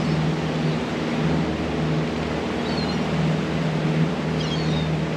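Boat engine running steadily, a low droning hum with a constant hiss over it. A bird calls faintly twice, near the middle and near the end.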